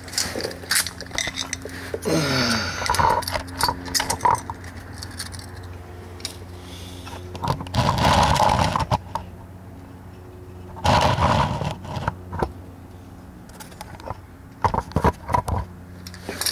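Clicks, knocks and scraping from tools and handling while working under a car, over a steady low hum. There is a brief falling grunt about two seconds in, and two longer rustling scrapes around eight and eleven seconds.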